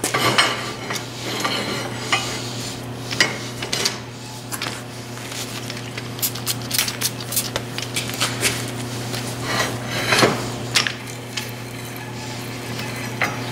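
Irregular clinking and clanking of steel as a steel adapter plate and the wrenches lying on it are handled on a hand tapping machine during thread tapping, over a steady low hum.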